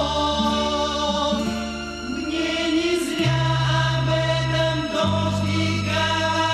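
A Soviet pop-rock band plays an instrumental passage between sung lines. Sustained bass notes change every second or two under held chords, with a cymbal wash about three seconds in.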